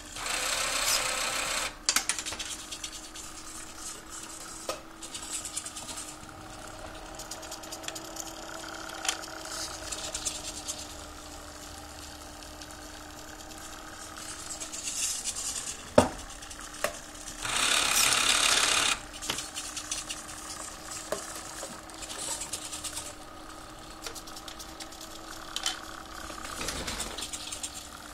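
Hobby servo motors of a homemade six-axis robot arm whirring in several short bursts as the arm moves, over a steady low hum. There is one sharp knock about two-thirds of the way through.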